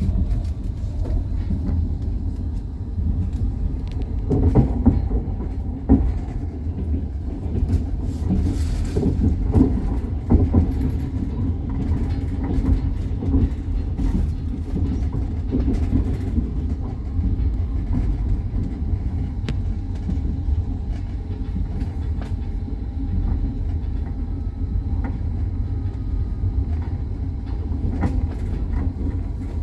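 Train wheels running over the rails, heard from aboard the moving train: a steady low rumble with scattered clicks and knocks from the rail joints.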